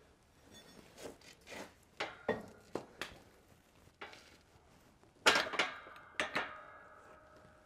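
Steel clinks and clanks of a bearing race driver tool knocking against the race and the steel wheel hub as it is set in place for pressing. Several light knocks are followed by two louder clanks about five and six seconds in, the second leaving a metallic ring that slowly fades.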